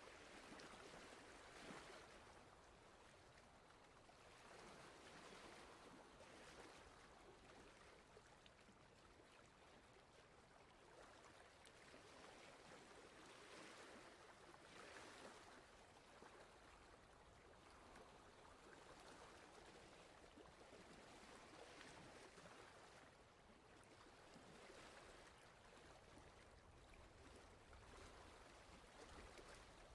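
Faint rushing water, swelling and easing gently every few seconds.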